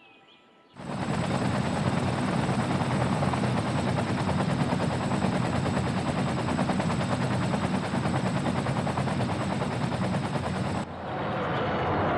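Loud engine noise with a fast, even pulse, starting abruptly about a second in and cutting off suddenly about a second before the end.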